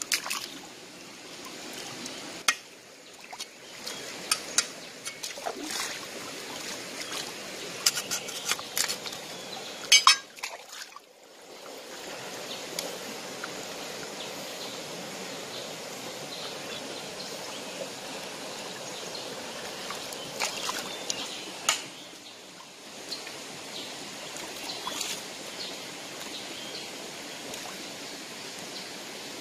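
Shallow running river water splashing and sloshing as a fish is handled and cleaned in it, with scattered sharp clicks and knocks through the first twelve seconds or so. After that the water settles into a steady running-stream sound.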